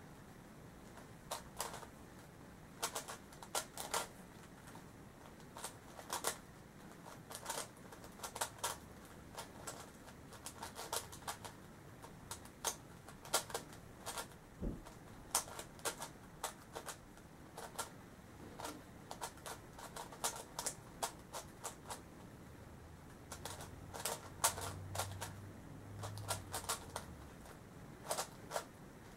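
Plastic clicking of a Yuxin Little Magic megaminx being turned during a solve: quick runs of several turns broken by short pauses.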